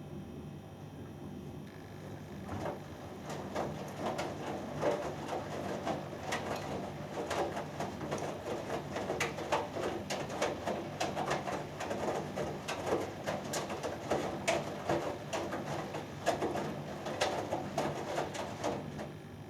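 Hoover Dynamic Next front-loading washing machine in its main wash: the drum starts turning about two seconds in, with wet laundry and water sloshing and thudding irregularly over a steady motor hum, then stops again near the end.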